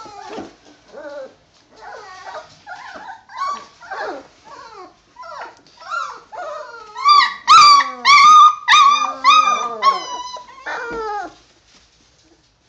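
Three-and-a-half-week-old Doberman puppies whining and yelping in a string of short, high-pitched cries that mostly fall in pitch. A louder run of about seven yelps comes in the later part, and the crying dies away near the end.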